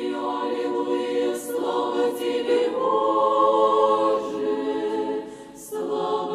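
Choir singing slow, held chords, moving to a new chord about two and a half seconds in and breaking off briefly near the end before going on.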